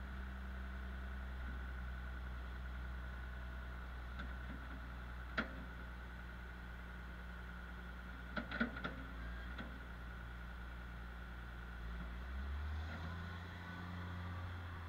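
Diesel machinery running steadily as a John Deere wheel loader tips soy meal into a Jay-Lor mixer wagon: a low drone with a steady high whine over it. There is one sharp knock about five seconds in and a quick cluster of knocks about eight and a half seconds in. Near the end the engine note rises as the loader backs away.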